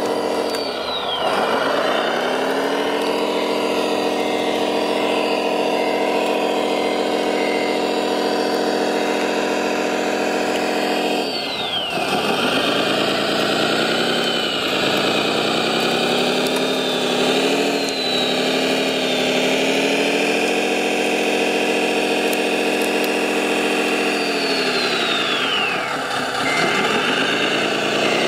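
Remote-control Caterpillar D9 model bulldozer running with a steady, engine-like drone while it works in mud. The pitch sags and recovers three times, about a second in, around the middle and near the end, each time with a high falling whistle.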